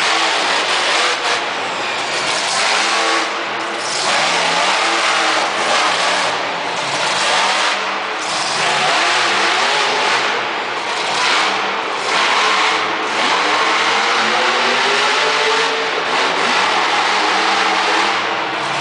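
Monster truck engine revving hard and continuously, its pitch rising and falling again and again as the truck accelerates, wheelies and turns, loud inside an indoor arena.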